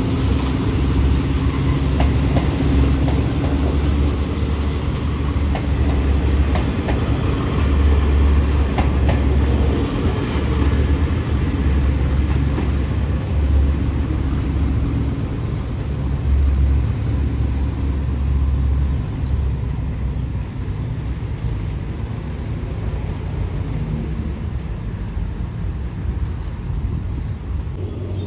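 Train of passenger coaches rolling slowly along the platform track: a steady low rumble of wheels on rail, with brief high-pitched wheel squeals about three seconds in and again near the end. The rumble eases off over the last third as the train moves on.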